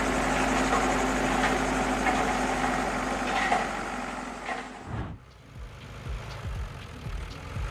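Heavy diesel machinery, an excavator's engine, running steadily under load with a few knocks. About five seconds in it cuts abruptly to a quieter engine running with occasional knocks.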